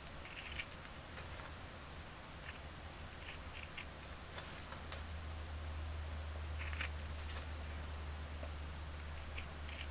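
Scissors cutting carefully around a small patch of thin cotton fabric backed with double-sided tape, giving short scattered snips. A low steady hum runs underneath and grows a little stronger about halfway through.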